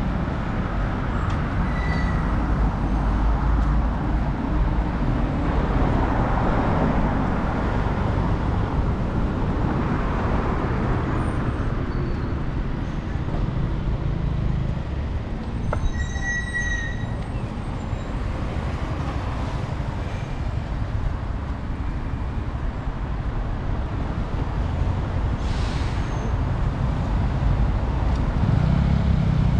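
Road traffic on a busy town road: cars, a lorry and a motorcycle running past in a steady rumble, with a couple of short high squeaks along the way.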